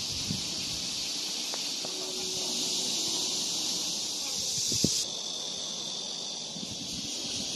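Insects droning steadily in the trees, a dense high hiss; its pitch and level change abruptly about five seconds in, with a brief knock just before.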